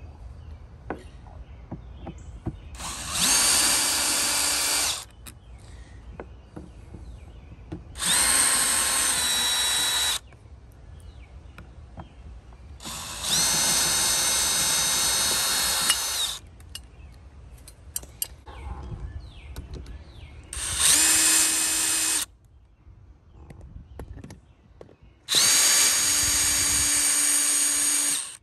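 Cordless brushless drill/driver backing out the screws of an old RV door lock. It runs in five bursts of about two to three seconds each, each spinning up with a rising whine, with small clicks and handling noise between bursts.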